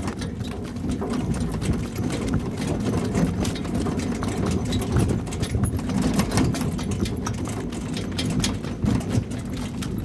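Pony-drawn cart rolling along a dirt track: a steady low rumble with a busy rattle of small clicks from the cart, harness and hooves.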